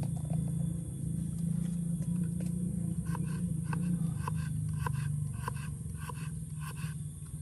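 Large kitchen knife chopping shallots and garlic on a small wooden board: a run of light knocks, two to three a second, starting about three seconds in, over a steady low hum.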